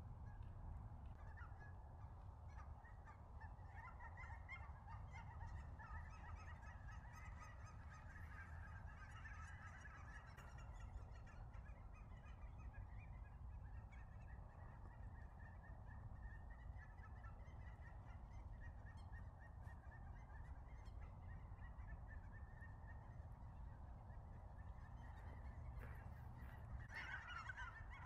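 A large flock of cackling geese calling: a continuous, noisy chorus of many short, high calls overlapping, swelling louder near the end as more birds come in.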